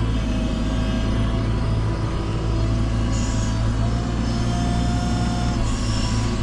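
JCB 3CX backhoe loader's diesel engine running steadily under work, with a thin high whine over the engine drone that steps up slightly about four and a half seconds in.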